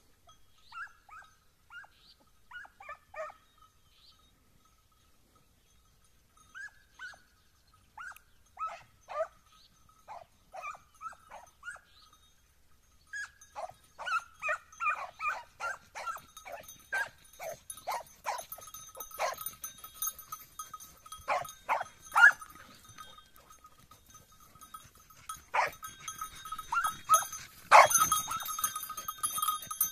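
Hunting hounds baying on a hare's trail: scattered yelping calls at first, growing more frequent and louder from about halfway, loudest near the end.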